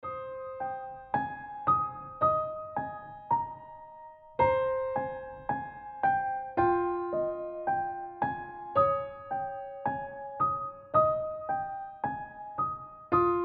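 Background music: a gentle piano melody of single notes, about two a second, each ringing and fading.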